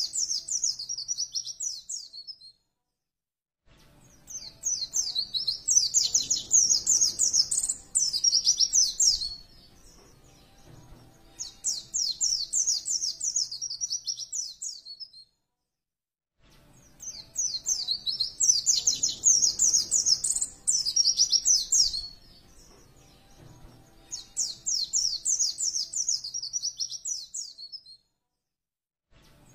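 White-eye (pleci) singing fast, high twittering song phrases in bouts of a few seconds, each broken off by about a second of silence, as in a looped training recording.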